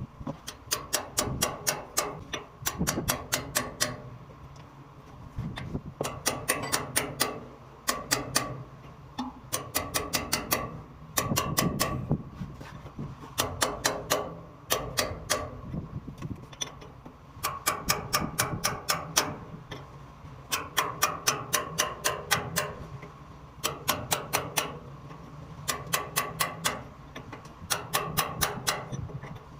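Hand-tool work on metal: bursts of rapid metallic clicks or taps, about six a second, each burst lasting a second or two with short pauses between.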